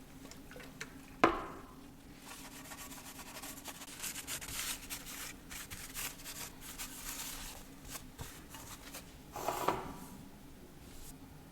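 A metal tool knocks once with a brief ring, then rubs and scrapes against a metal engine part for about six seconds, ending with a second metallic clatter near the end.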